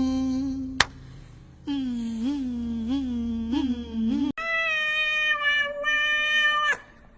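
A steady humming tone that cuts off with a click under a second in, then a low warbling voice that lifts in pitch about every half second. After a sharp cut comes a cat's long, steady meow lasting over two seconds.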